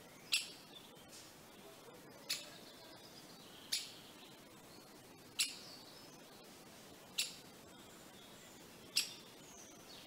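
Great spotted woodpecker calling: a sharp single note repeated about every one and a half to two seconds, six calls in all.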